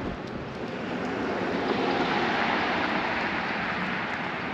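A vehicle passing close by on the road: engine and tyre noise that swells to a peak about two seconds in, then fades.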